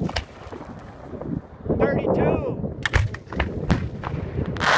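Professional aerial fireworks display: shells launching and bursting overhead in an uneven series of sharp bangs, the loudest near the end.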